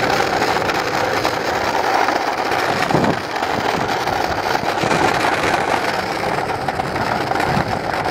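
Steady rushing and rumbling noise of moving fast while being towed along by a pulling dog, with wind on the microphone and a brief louder gust about three seconds in.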